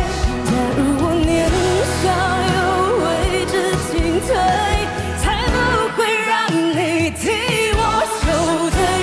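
A woman singing a Mandarin pop ballad with wide vibrato over live band accompaniment of bass and drums. The bass drops out briefly about six seconds in.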